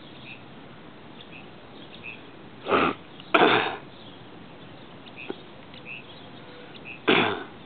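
Three short breaths close to the microphone: one about three seconds in, a longer one just after, and another near the end, over a steady faint hiss.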